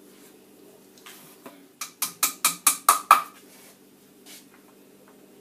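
A hammer tapping dowels into the holes of a wooden bunk-bed side rail: seven quick, sharp strikes, about five a second, beginning about two seconds in.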